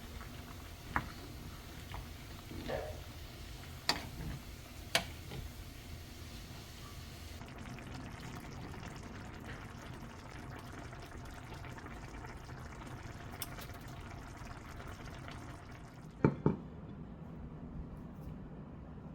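Kitchen cooking sounds: food bubbling and being stirred in a pot, with a few sharp clinks of utensils on cookware.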